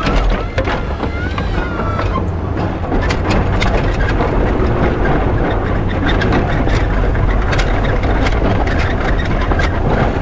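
Pickup truck with a Fisher snowplow pushing heavy wet snow: a steady low engine rumble under a rushing noise, with scattered sharp clicks and knocks from the blade and the snow.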